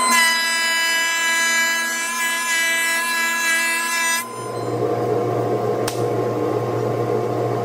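A thickness planer cutting a board, a loud whine of many steady tones. About four seconds in this gives way abruptly to the lower, steady hum of a running bandsaw, with a click near six seconds.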